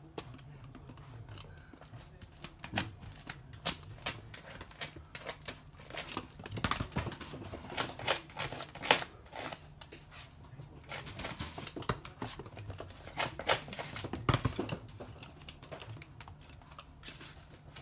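Toy poodle's claws clicking irregularly on a hard floor as it moves about.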